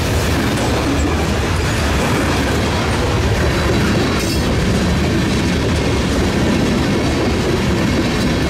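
Freight train of covered hopper and tank cars rolling past close by: steady, loud rumble and clatter of steel wheels on the rails.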